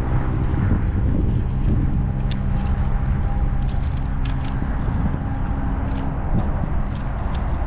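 Steady low hum of a running engine, with scattered light clicks and rustles over it.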